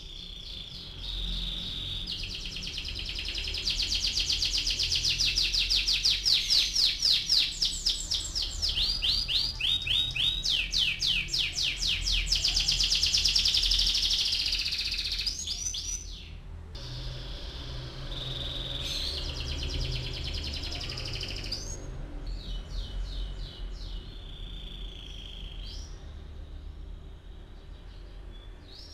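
Domestic canary singing a long rolling song of fast trills and rapidly repeated notes, loudest in the first half, breaking off briefly past the middle before going on.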